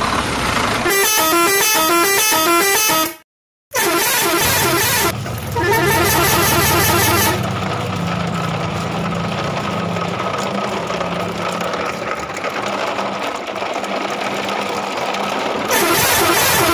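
Multi-tone truck air horn playing a short repeating melody of notes, twice, with a brief break between; then a truck engine running steadily, and the horn melody comes back near the end.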